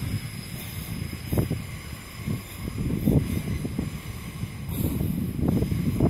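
Wind buffeting a phone microphone during a walk: an uneven, gusty low rumble that swells and dips, with a couple of brief soft knocks.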